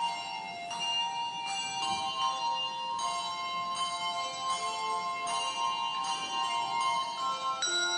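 Handbell choir ringing a piece: struck handbell notes and chords about every half second to a second, each ringing on so the tones overlap.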